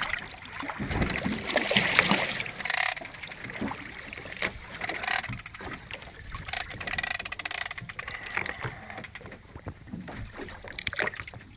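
Sounds aboard a small boat at sea: irregular knocks and clicks with rushes of water and wind noise.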